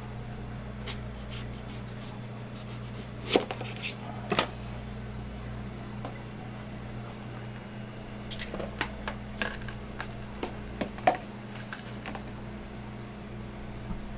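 A chef's knife cuts through a netted melon, and the knife, the melon halves and a metal melon baller knock sharply on a plastic cutting board. The knocks come twice around three to four seconds in, then in a cluster from about eight to eleven seconds. A steady low appliance hum runs underneath.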